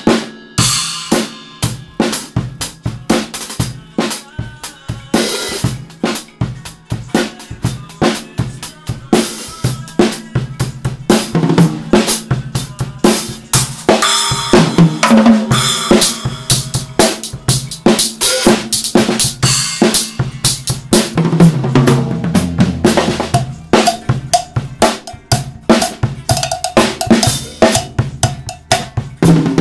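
Acoustic drum kit being played: a continuous rhythm of bass drum, snare and cymbal hits.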